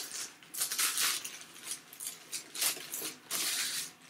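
Clear plastic bag crinkling and rustling in irregular bursts as a boxed plaque is pulled out of it.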